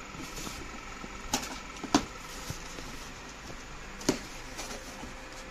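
A cardboard box being opened by hand: its flaps are pulled and handled, with three sharp snaps or knocks, the loudest about two seconds in, over a faint steady hum.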